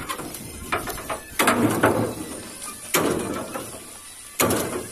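Sugarcane stalks thrown down against the steel bed of a tractor trailer: about five sharp clattering impacts at irregular intervals of one to one and a half seconds, each ringing briefly.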